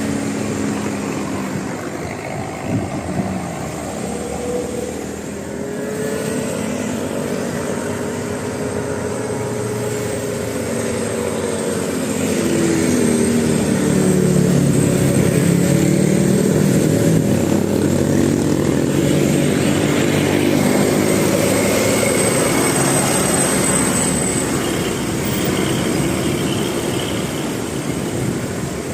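Bus engine running, getting louder about twelve seconds in as its note climbs while it accelerates.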